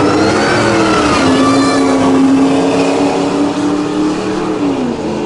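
V8 engines of Ford pickup trucks at full throttle down a drag strip. The engine note climbs, dips at a gear shift about a second in, holds steady, then falls away near the end as the throttle is lifted.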